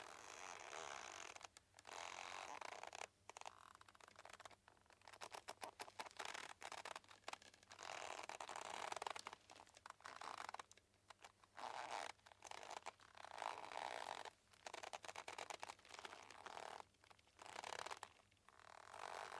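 Boat's rope creaking as it strains and rubs, in irregular drawn-out creaks of a second or two with short pauses between.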